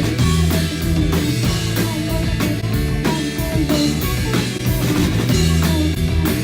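Rock music with a driving drum kit beat, bass and guitar.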